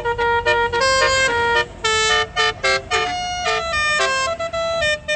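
A tour bus's Basuri telolet multi-tone horn playing a quick melody of stepped, buzzy notes, each held a fraction of a second, with a few short breaks between phrases.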